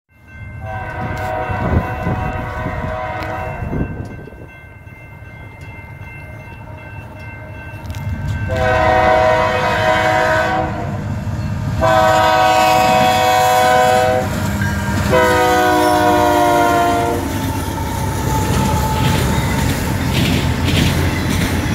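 Canadian Pacific freight locomotive horn sounding four long blasts as the train approaches the crossing. Under the horn and after it comes the rumble of the diesel locomotives and the clatter of the autorack cars' wheels passing close by, growing louder.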